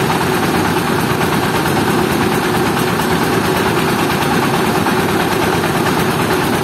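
Mobile rice mill running: its diesel engine drives the rice-hulling machinery with a loud, steady mechanical drone that does not change.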